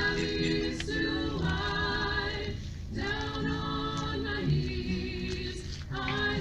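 Small choir singing a song in harmony, with a short break between phrases about three seconds in.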